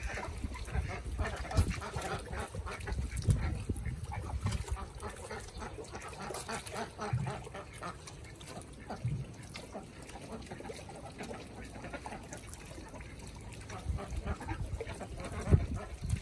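Domestic geese dabbling and splashing in shallow floodwater as they dip their bills, with occasional goose calls. A few low thumps, the loudest near the end.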